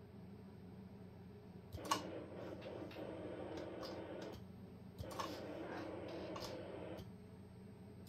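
Ham transceiver and linear amplifier keyed into transmit twice from a hand microphone's push-to-talk switch. Each key-up starts with a sharp relay click, followed by about two seconds of steady low hum from the station while transmitting a test carrier, which then stops as the key is released.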